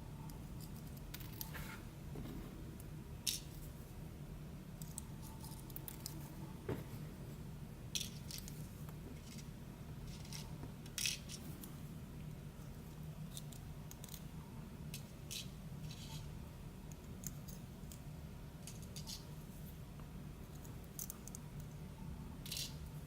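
Small metal clicks and taps of lock pins, springs and a tool as the driver pins and springs are taken out of an ASSA d12 lock cylinder, scattered singly every second or two over a faint steady low hum.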